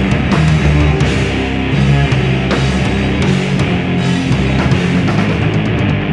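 A punk band playing live: distorted electric guitar, bass guitar and a drum kit with cymbals, loud and driving, with a run of quick drum hits near the end.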